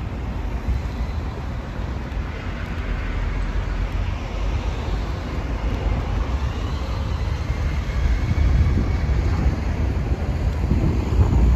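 City road traffic noise with wind buffeting the microphone, the low rumble swelling about two-thirds of the way in and again near the end.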